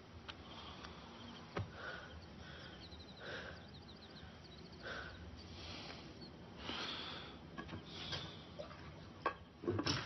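A sleeping man's slow breathing, a soft swell every second or two, with faint high chirps over it and two sharp clicks near the end.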